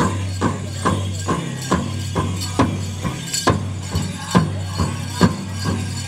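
Powwow drum music: a drum struck in a steady beat of a little over two beats a second, with a bright high rattle over it.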